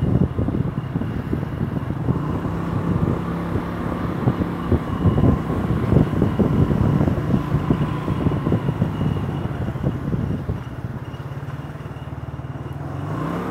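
Motor scooter engine running while riding, with wind buffeting the microphone. It quietens as the scooter slows about two-thirds of the way in, and the engine note rises again near the end.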